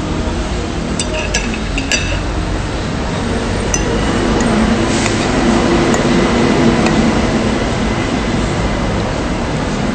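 A metal spoon clinks against a dish a few times, three quick clinks about a second in and a few scattered ones later, over steady background noise that swells in the middle.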